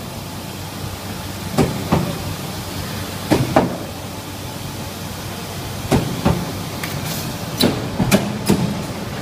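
Sheet-metal forming machinery of a chest-freezer side-panel production line running: a steady machine hum broken by sharp metal clanks, mostly in pairs, about every two seconds.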